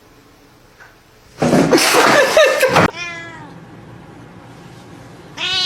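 A cat yowling loudly and harshly for about a second and a half, followed by a meow falling in pitch, and another meow near the end.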